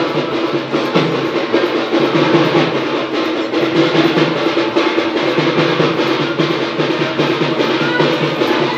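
Music with rapid, continuous drumming and a steady held note.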